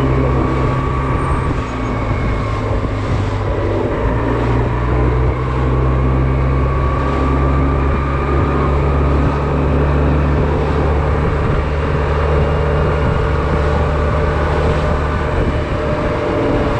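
Honda Silver Wing maxi-scooter's engine running steadily under way, with a dense road noise beneath it.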